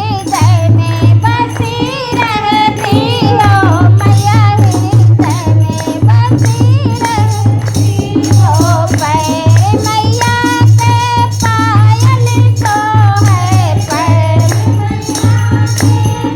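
Devotional Devi song: a voice sings a wavering, ornamented melody over a steady beat of drums and rattling, jingling percussion.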